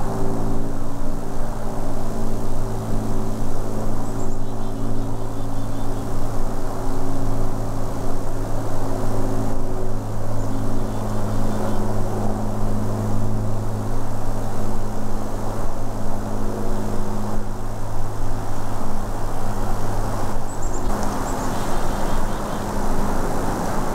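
A steady low engine drone over a hiss, which cuts off suddenly about three seconds before the end.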